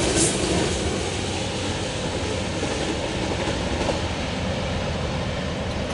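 Freight train of covered hopper cars rolling past as its last cars go by. The wheel and car noise drops off within the first second to a steady rumble as the train moves away.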